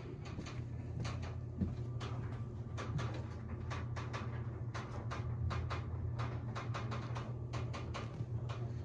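Metal tools clicking, knocking and scraping against a seized piston in a VW 1300cc air-cooled engine as it is worked to free it from its cylinder, many short irregular knocks over a steady low hum.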